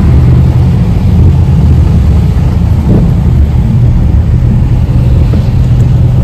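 A car being driven, heard from inside the cabin: a loud, steady low rumble of road and engine noise.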